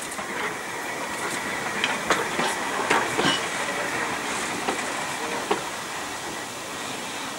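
Narrow-gauge railway wagons rolling past and away, their wheels clacking irregularly over rail joints and fading as the train recedes, with a faint thin wheel squeal in the first few seconds.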